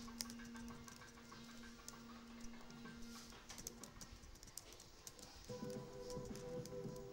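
Computer keyboard keys clicking in quick, irregular taps as text is typed, faint under background music with held tones.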